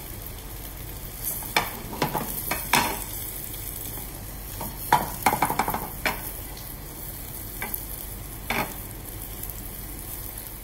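Floured mackerel fillets sizzling skin-side down in olive oil in a steel frying pan, with several sharp pops standing out over the steady sizzle.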